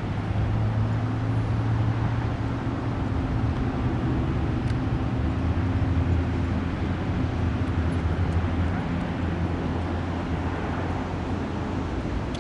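A steady low engine drone over a wash of background noise, its hum dropping to a lower pitch about five seconds in.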